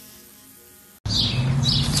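A faint steady buzz, then a sudden cut about a second in to loud, irregular chirping of small birds over a low steady hum.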